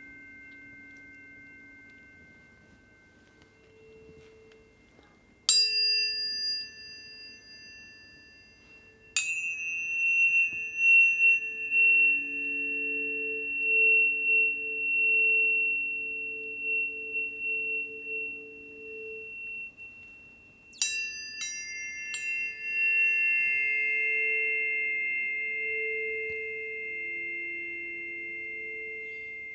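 Planetary tuning forks struck one after another, four times in all, each strike a bright metallic ping that leaves a long ringing tone. The ringing tones overlap and waver slowly.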